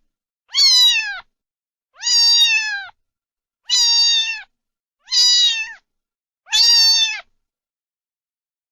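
Domestic cat meowing five times in a row. Each meow lasts under a second, holds a high pitch and drops at the end, with about a second and a half between calls.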